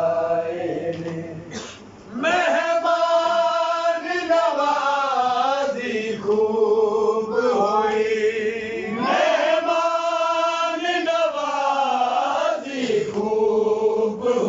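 Men's voices chanting a Punjabi noha, a Shia mourning lament, unaccompanied, in long drawn-out notes that waver and swell, with a short breath pause about two seconds in.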